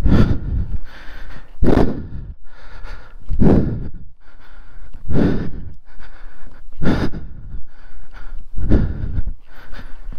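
A person breathing heavily and rhythmically close to the microphone, with six loud, noisy breaths about one every 1.7 seconds.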